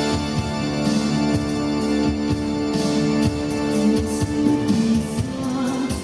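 Live concert music: a male vocalist singing over sustained organ-like keyboard chords and a drum beat, amplified through a hall's sound system.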